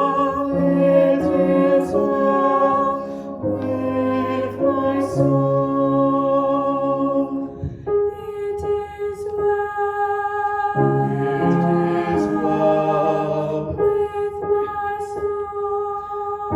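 Slow hymn music of sustained, held chords that change every second or two, with a short break about eight seconds in.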